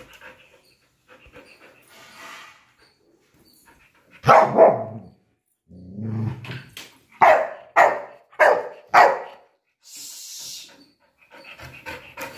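Golden retriever barking: one loud bark about four seconds in, a low growl, then four quick barks about half a second apart.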